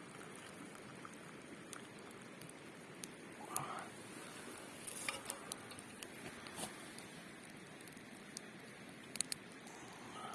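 Small campfire crackling: scattered light pops and ticks over a faint steady hiss.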